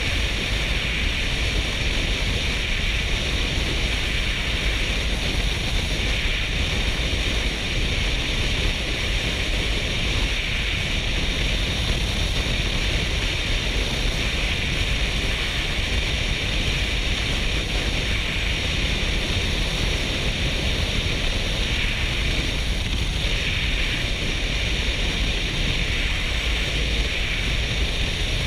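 Steady wind noise rushing over a helmet-mounted GoPro's microphone while riding a Kawasaki Versys 650 motorcycle at road speed, with a deep rumble and hiss and no engine note standing out.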